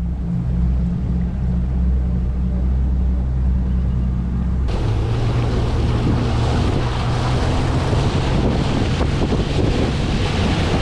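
A boat's engine running steadily with a low hum. About five seconds in, the sound changes abruptly to the boat underway: the engine under loud rushing wake water and wind buffeting the microphone.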